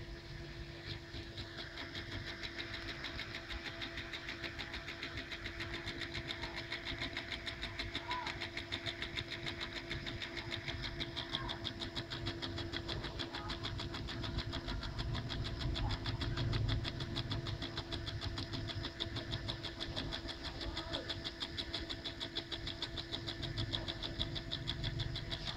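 Homemade solenoid engine running: rapid, even clicking of the coil's plunger and contacts as it turns the flywheel, firming up over the first couple of seconds.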